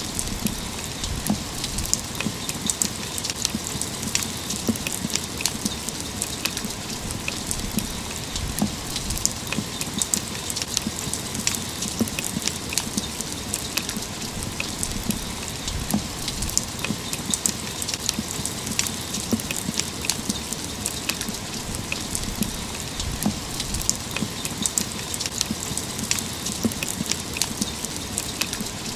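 Steady rain falling. Many single drops hit a hard surface close by, giving dense sharp ticks and splats over an even hiss.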